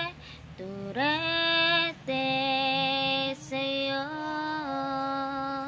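A woman singing unaccompanied, holding a string of long, drawn-out notes with brief breaks between them, sliding up into the first long note about a second in.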